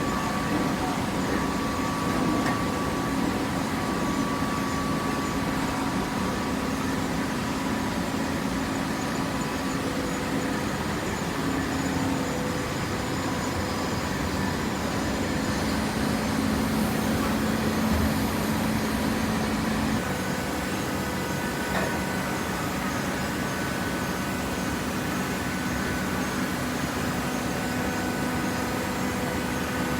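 Hydraulic cardboard baler running: a steady mechanical hum with a few held tones, which shift to a different set about twenty seconds in.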